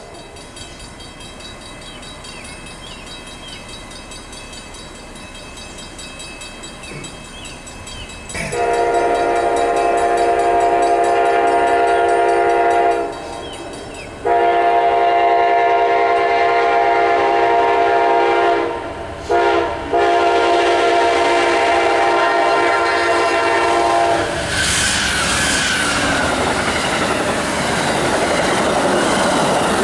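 Amtrak passenger train's locomotive horn sounding the grade-crossing signal: two long blasts, a short one and a final long one. The train then passes at speed with a loud rush of wheel and rail noise.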